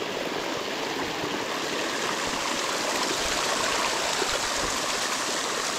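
Water of a small forest waterfall and its stream rushing steadily.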